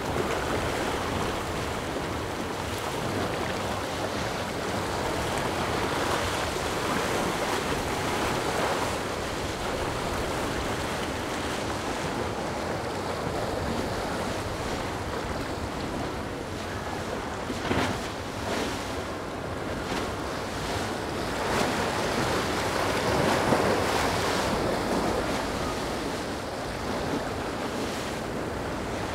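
Steady rush of choppy inlet waves and a motor yacht's bow spray and wake, with wind buffeting the microphone; a couple of brief knocks about two-thirds of the way through.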